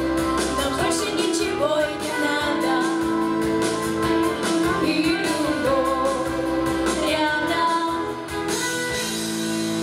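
Two girls singing a pop-style duet into microphones over instrumental accompaniment. Near the end the voices drop out and the song settles on a held final chord.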